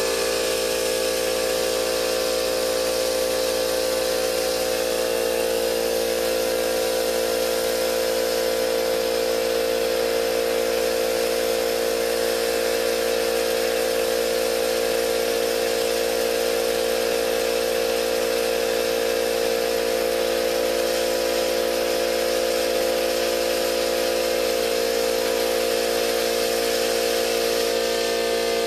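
Central Pneumatic 21-gallon cast-iron vertical air compressor running: its electric motor and pump make a steady, noisy drone with a strong hum as it fills the tank.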